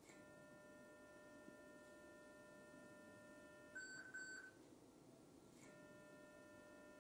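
Surgical energy generator's activation tone while vessels are being sealed: a steady electronic tone for nearly four seconds, a brief louder tone of a different pitch, then after a short pause the steady tone again.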